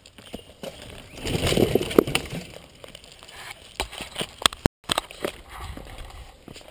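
Mountain bike riding over a rocky, leaf-strewn trail: a louder stretch of tyre and rolling noise about a second in, then a run of sharp knocks and rattles as the bike goes over the rocks.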